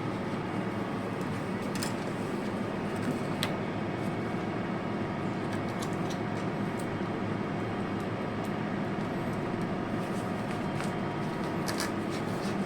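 Steady mechanical drone of background machinery, with a few faint clicks as the steel wire rope strands are handled and twisted into the splice.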